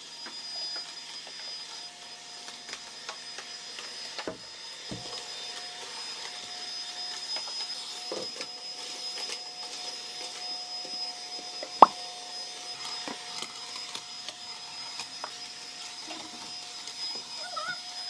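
Bobbot cordless stick vacuum running steadily with a high motor whine as its floor head is pushed over tile, with scattered light knocks and one sharp click about two-thirds of the way through.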